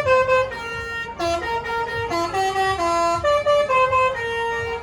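Indonesian bus 'telolet basuri' musical air horn playing a quick tune, one note at a time, stepping up and down in pitch with no breaks.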